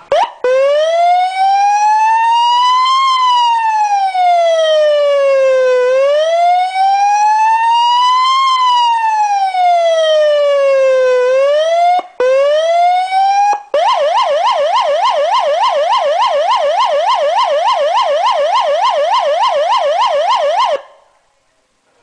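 Electronic emergency-vehicle siren sounding a slow wail that rises and falls twice, each sweep taking a few seconds. After a brief break it switches to a fast yelp of about four rises a second, which cuts off abruptly near the end.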